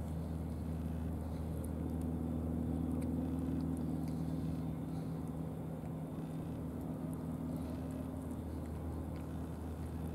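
A steady low engine drone, swelling slightly about two to four seconds in.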